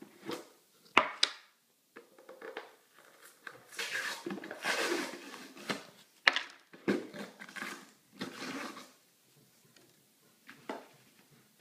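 Plastic protein powder tub being opened by hand: a few sharp clicks and knocks of the plastic lid, the loudest about a second in, and longer stretches of rustling and scraping as the seal is dealt with and the lid is set down.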